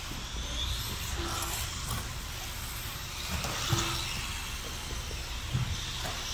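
Losi Mini JRX-2 and other small electric RC buggies racing on a carpet track: faint high motor whines rising and falling over a steady hiss. A couple of sharp knocks are heard, about four seconds in and again near the end.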